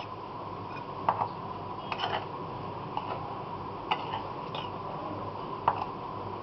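A utensil stirring dry flour, cocoa powder and sugar in a bowl: a soft steady scraping with light clicks against the bowl about once a second.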